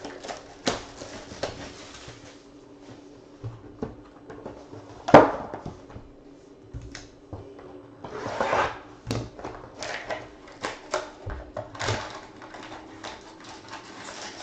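Plastic wrap crinkling and cardboard handled as a Topps Museum Collection trading-card box is unwrapped and its packs lifted out. There are scattered taps and clicks, one louder knock about five seconds in, and a longer crinkle a little past halfway.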